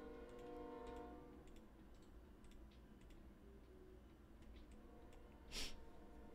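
Near silence: faint room tone with scattered soft clicks, and a short breathy hiss about five and a half seconds in.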